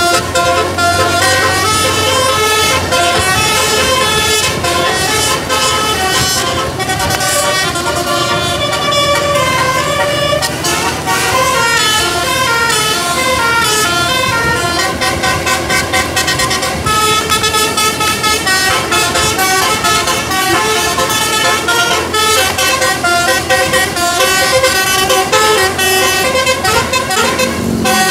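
Bus telolet musical air horn playing a fast tune of many short stepped notes, several tones sounding together, with rising and falling scale runs.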